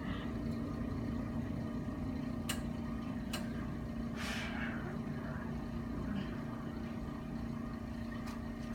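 Steady low mechanical hum with one held tone. A couple of faint clicks come a little past two and three seconds in, and a brief soft hiss about four seconds in.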